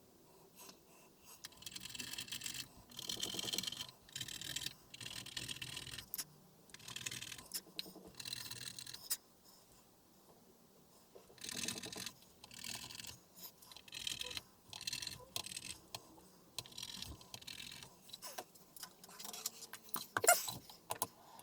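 Irregular scraping, rustling and light clattering from hands at work on the bench, handling test probes and TV backlight LED strips, in short bursts with brief pauses.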